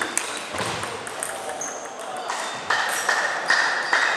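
Table tennis rally: the celluloid ball's sharp clicks off bats and table, ending partway through, mixed with short high squeaking tones.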